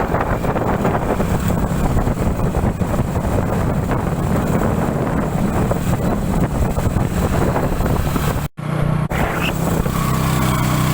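Wind buffeting the microphone: a loud, steady, rumbling roar, broken by a short cut about eight and a half seconds in.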